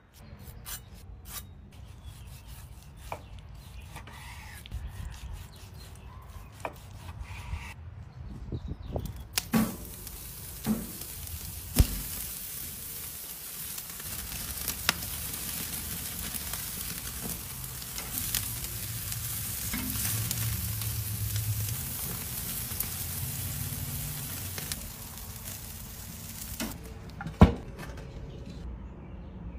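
Steak pinwheels sizzling on a charcoal grill grate: a dense, steady hiss that starts about a third of the way in and cuts off abruptly near the end, with scattered sharp clicks. Before it, light taps and rustling, and after it, one loud sharp knock.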